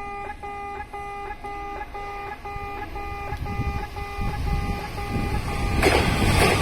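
Old-style electronic level-crossing alarm beeping 'pē-pē' about twice a second. From about halfway an approaching train's rumble and rush swells, until near the end it drowns out the beeps.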